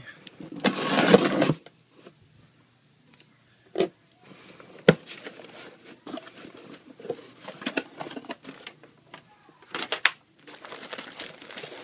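Packing tape on a cardboard shipping box being slit with a pocketknife, a loud burst of tearing noise about a second long. Then a few sharp clicks and the scrape of the cardboard flaps being opened, and plastic wrapping rustling near the end.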